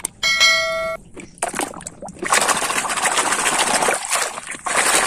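A click and a short bell-like chime, then from about two seconds in, loud splashing and sloshing of muddy water as a plastic toy excavator is swished through it to wash it.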